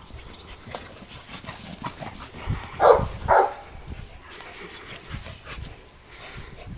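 A Labrador retriever barking twice in quick succession, about three seconds in, with faint scattered clicks and knocks around the barks.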